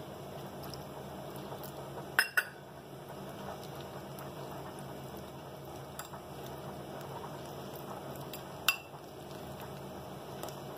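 Spoon stirring a flour-and-water batter in a bowl, a steady soft mixing noise, with a couple of sharp clinks of the spoon against the bowl about two seconds in and near the end.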